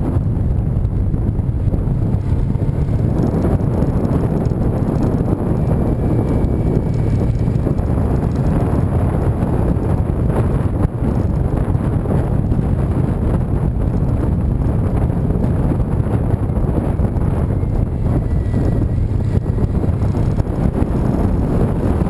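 Wind rushing over a camera microphone on a moving motorcycle: a steady, loud low rumble, with the motorcycle running and road noise beneath it.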